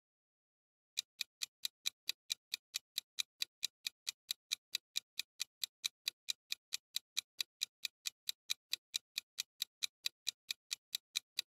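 Clock-style ticking sound effect for a countdown timer: fast, even ticks, roughly four and a half a second, starting about a second in.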